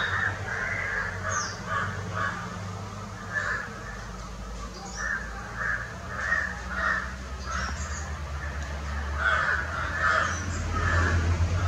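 Crows cawing repeatedly, harsh calls in short series throughout, over a steady low rumble.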